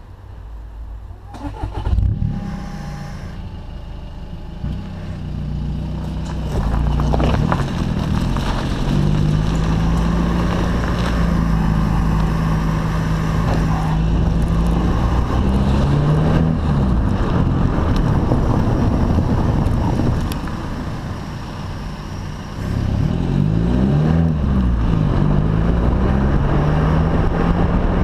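Audi A3 8V 2.0 TDI four-cylinder diesel with a Stage 1 tune and sport exhaust, heard at the twin tailpipes: the engine starts about two seconds in, then runs loudly as the car drives off, its note rising and falling, dipping for a moment and picking up again.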